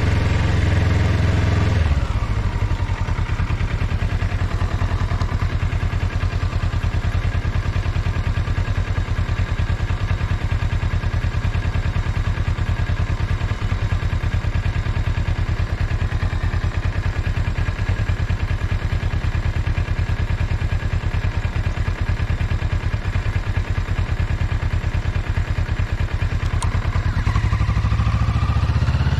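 Motorcycle engine running. It drops after about two seconds into a steady idle with an even pulse, and the revs start to rise again near the end.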